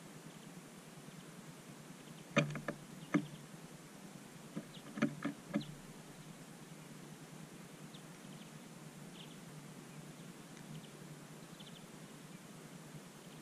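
Two short clusters of sharp clicks or knocks, about two seconds in and again about five seconds in, over a low steady hum. A few faint, short high chirps follow later.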